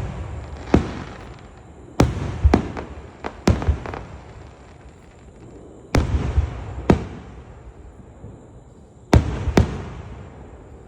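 Aerial fireworks bursting overhead: about eight sharp bangs in clusters of one to three, every two to three seconds, each trailing off in a rumbling echo.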